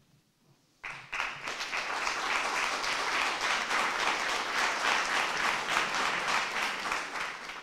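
Audience applauding: many hands clapping, starting suddenly about a second in, holding steady and dying away at the end.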